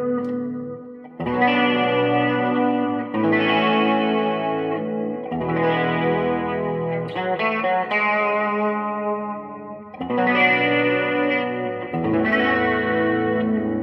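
Electric guitar played through an amplifier: chords struck and left to ring, a new chord about every two seconds, as an A/B demonstration of the amp's tone.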